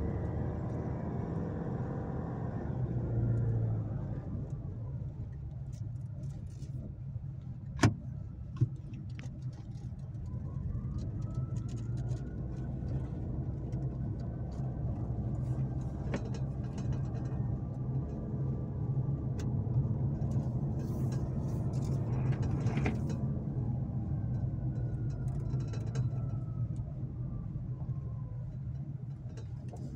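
In-cabin sound of a Nissan Navara Calibre-X pickup driving slowly on a narrow concrete road, its 2.5-litre turbodiesel running with a steady low hum. Two sharp knocks come close together about eight seconds in.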